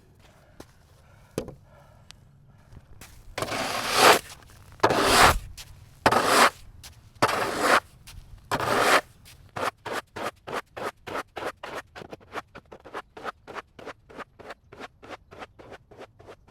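Snow being cleared by hand: five long scraping strokes, then a fast run of short scraping strokes, about three a second.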